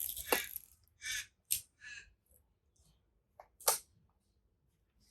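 Mechanical clicks and short rasps from a Voigtländer Bessamatic 35 mm film camera being worked by hand: winding on and firing the shutter. A sharp click about three and a half seconds in is the loudest.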